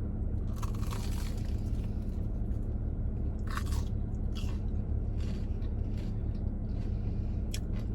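Chewing of a crunchy, batter-fried Korean corn dog close to the microphone, with crisp crunches at irregular intervals over a steady low hum.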